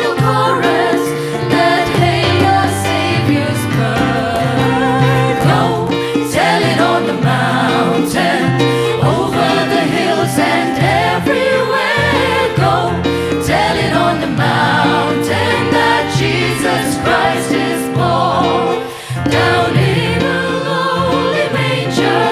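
Background music: a choir singing a gospel-style Christmas song over instrumental backing.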